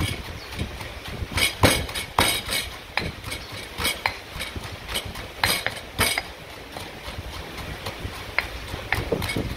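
Stone pestle pounding a spice paste in a stone mortar: irregular dull knocks, about two a second, softer over the last few seconds.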